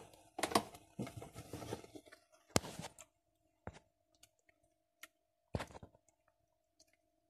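Handling noise from a phone held in the hand: scattered knocks, clicks and rubbing, most of them in the first three seconds and a few more near the end. A faint steady hum sits underneath.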